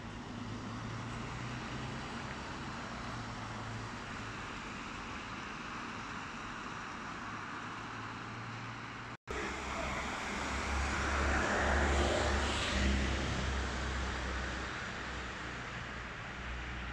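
City street traffic on wet roads: a steady hum of car and tyre noise, with a vehicle passing louder about two-thirds of the way through. The sound cuts out for a moment about halfway.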